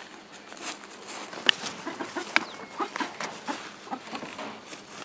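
Rhode Island Red chickens clucking in short, irregular notes, with a couple of sharp clicks standing out among them.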